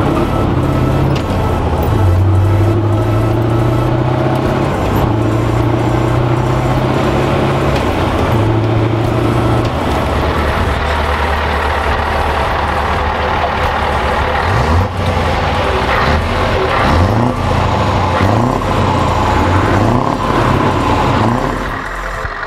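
Scania V8 truck engines with open exhausts running loud under way. For the first half the deep engine note holds steady and steps in pitch every few seconds; in the second half the engines are revved, with several quick rising and falling blips.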